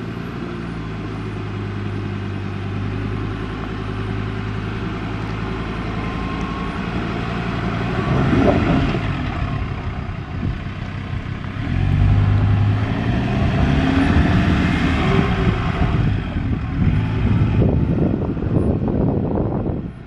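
Ford Ranger ute's engine pulling up a steep rutted dirt hill, running steadily at first, then revving harder about eight seconds in and again from about twelve seconds, with irregular knocks as it works over the rocks.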